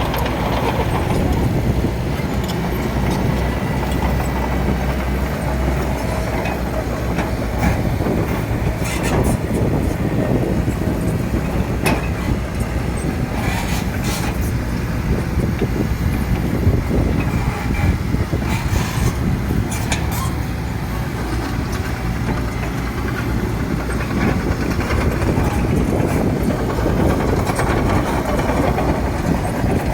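Excavator's diesel engine running steadily while working soil, with a few short metallic clanks along the way.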